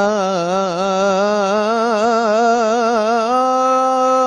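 A man's voice singing an Islamic ibtihal: one long wordless melisma with rapid wavering ornaments, settling about three seconds in onto a single held note.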